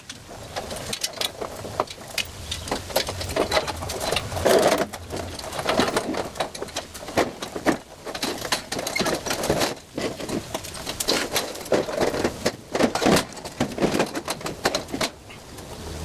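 Stucco repair work: irregular scraping and clicking of hand tools against a wall, with uneven rasping strokes.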